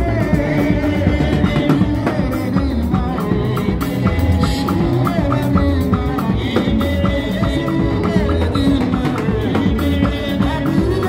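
Live band music: hand drums and drum kit keeping a steady beat under bass guitar and keyboard, with a man singing into a microphone.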